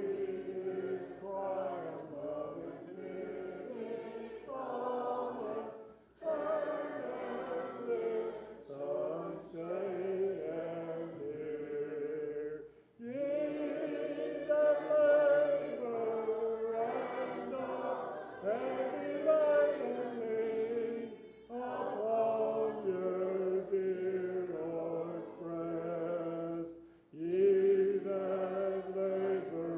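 Congregation singing a hymn a cappella, many voices together without instruments, in long held phrases with short breaks between them.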